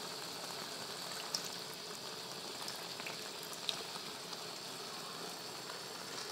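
Curry sauce with fried catfish simmering in a pan, a steady gentle bubbling sizzle with a few faint ticks.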